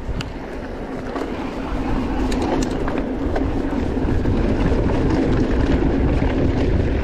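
Mountain bike being ridden over a rough, rocky trail: a steady rumble of tyres and rattling bike with a few sharp clicks, growing gradually louder.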